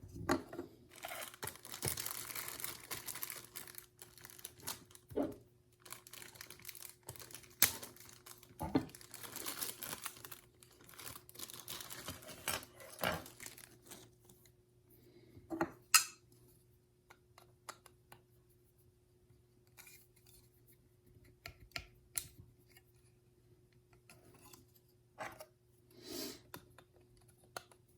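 Plastic packaging rustling and crinkling as small plastic model airplane parts are unwrapped and handled, with light clicks and taps of the parts. The rustling is heaviest in the first ten seconds or so, then gives way to scattered clicks.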